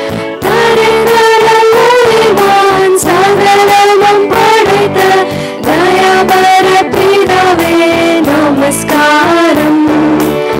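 Female students singing a song together into a microphone, with instrumental accompaniment under their voices.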